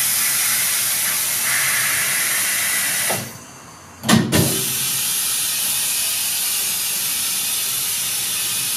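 Pneumatic clamping jaws of an ATH-Heinl M72 tyre changer's turntable worked by the foot pedal, with compressed air hissing steadily as the jaws slide outward. The hiss stops at about three seconds, then a sharp knock a second later as the pedal is reversed, and the air hisses again while the jaws close back in.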